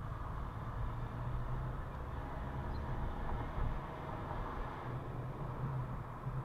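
Car engine and tyre noise heard from inside the cabin as the car drives along a street, picking up speed.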